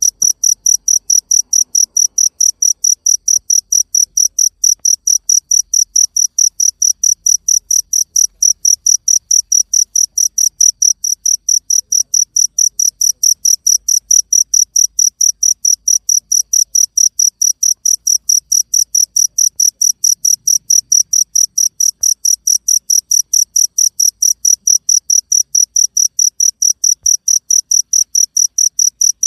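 A cricket chirping loudly and close by in a steady, unbroken rhythm, about four high-pitched chirps a second.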